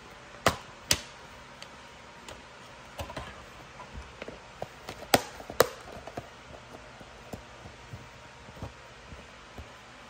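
Plastic DVD cases being handled: a string of sharp clicks and light taps, the loudest two about half a second and a second in and two more around five seconds in.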